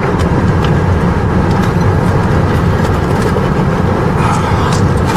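Steady low rumble inside a car's cabin with the engine running, with a few faint clicks over it.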